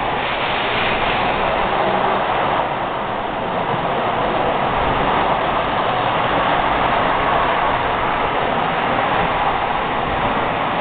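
Three-rail O gauge model trains running steadily on the layout's track, giving a continuous rolling noise of wheels and motors.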